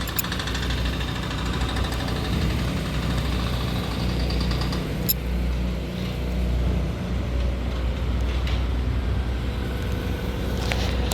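An engine running steadily, with a few short sharp clicks over it.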